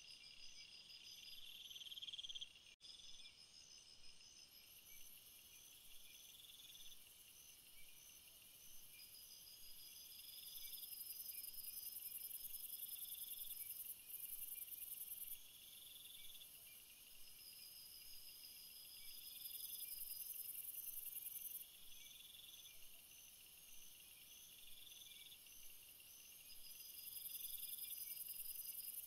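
Faint, high-pitched insect chirping: several overlapping trains of rapid pulses that start and stop every few seconds.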